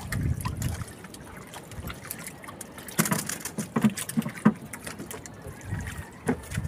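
Sea water trickling and splashing off a wire-mesh bubo fish trap as it is hauled up beside a wooden outrigger boat, with a few sharp knocks about halfway through.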